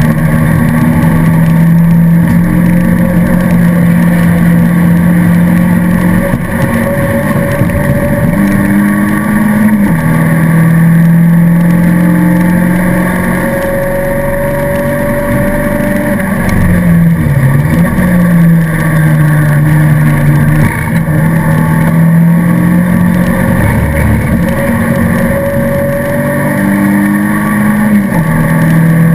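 Alfa Romeo 155 race car's engine running hard at high revs, heard from inside the stripped cabin, its pitch mostly held steady with a few short rises and one dip as the driver changes gear and brakes for corners.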